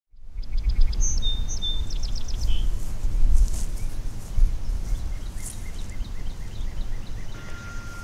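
Outdoor ambience: a low, gusting rumble of wind on the microphone, with small birds chirping in quick repeated notes. A faint steady high tone comes in near the end.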